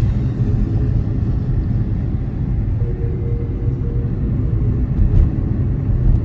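Steady low rumble of a moving car, road and engine noise, with a brief bump a little past five seconds.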